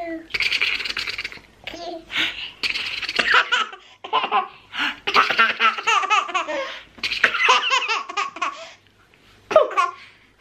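A toddler girl laughing in a run of short bouts with brief breaks between them.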